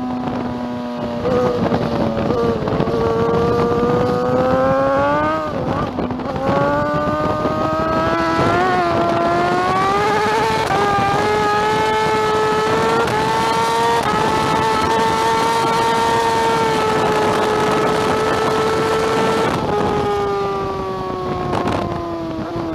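2009 BMW S1000RR's 999 cc inline-four engine under hard acceleration, its pitch climbing and dipping briefly at each upshift about six and eleven seconds in. It then holds high, steady revs for several seconds before easing off and falling in pitch near the end, over a steady rush of wind.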